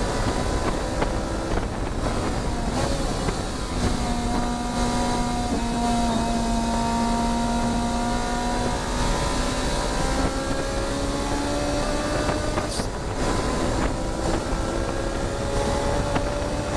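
Ferrari 458 Challenge's V8 engine running through the lap, its pitch holding steady and then climbing slowly, with dips as the throttle changes, over steady road and wind noise.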